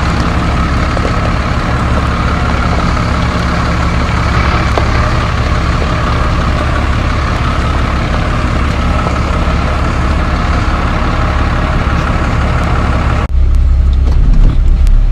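Diesel truck engine running steadily at low speed while the truck rolls slowly over fresh gravel. About two seconds before the end the sound changes abruptly to a louder low rumble with the higher sounds gone.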